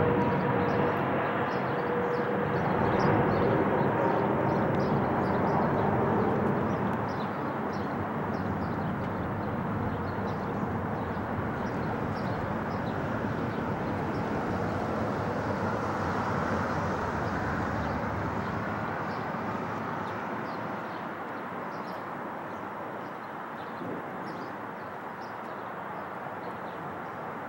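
Qatar Airways Boeing 777 on final approach with gear down, its twin GE90 turbofans rumbling as it flies away and the sound fades steadily. A whine on top of the rumble dies out in the first several seconds.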